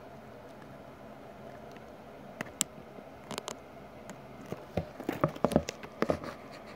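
Handling noise from a phone camera held against an ant-farm enclosure: a run of irregular light taps and clicks starting about two and a half seconds in, thickest around five seconds in, over a steady low room hum.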